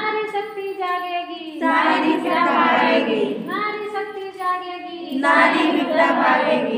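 A group of women singing a Hindi song together in unison, in long held lines that break every second or two.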